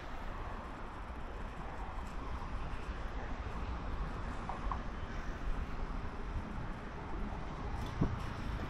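Steady outdoor street ambience: a low rumble of traffic with a continuous wash of noise, and a single sharp click about eight seconds in.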